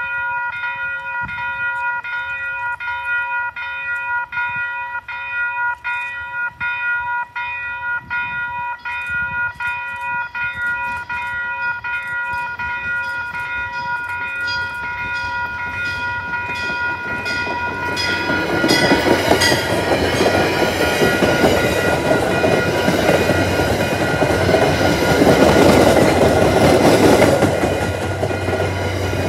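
Grade-crossing warning bell ringing steadily at about one and a half strikes a second. About 17 seconds in, an MBTA commuter rail train's cab car and coaches pass close by, their wheels rumbling and clattering loudly over the rails and the crossing.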